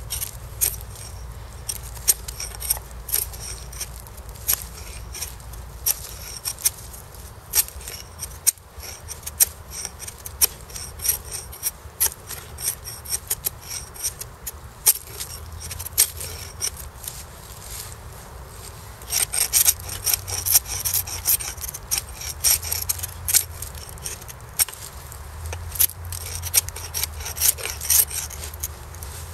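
Ka-Bar USN Mark 1 knife blade shaving down a wooden stick to carve a feather stick: a long run of quick, irregular scraping strokes, coming faster and louder about two-thirds of the way through.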